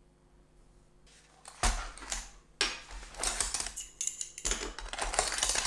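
Aluminium tube and angle offcuts clattering and clinking against each other as hands rummage through them in a cardboard box, starting about a second and a half in.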